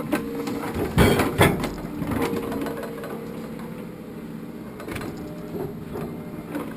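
Hydraulic log loader working a log truck: a steady machine drone and whine, with two heavy knocks about a second in as logs strike each other, then lighter clattering.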